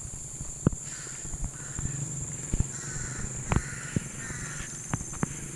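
Harsh animal calls in two raspy bouts, with scattered sharp clicks.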